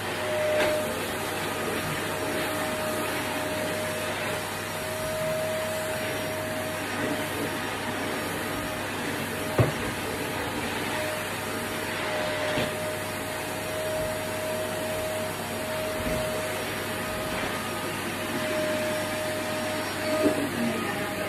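Vacuum cleaner running steadily out of sight, with a faint held whine over its noise and a few light knocks, the sharpest about ten seconds in.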